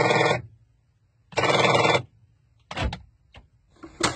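Harsh buzzing from inside a car door, in bursts of about half a second that repeat roughly every one and a half seconds, followed by a few sharp clicks near the end.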